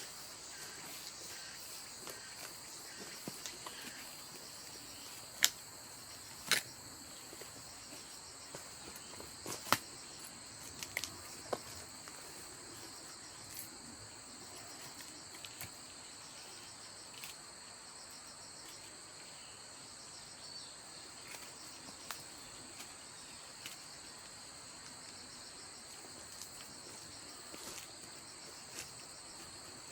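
Steady high chirping chorus of crickets. Scattered sharp clicks and knocks come through it, the loudest about five and a half, six and a half and ten seconds in.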